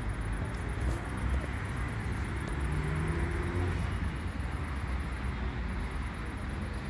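Steady street traffic noise: a low rumble of passing cars and a bus.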